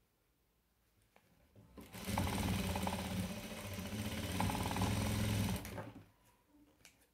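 Electric sewing machine running a seam for about four seconds: it starts about two seconds in, runs at a steady fast stitch, and stops near the end.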